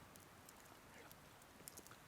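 Near silence: faint background hiss with a few small, faint clicks in the second half.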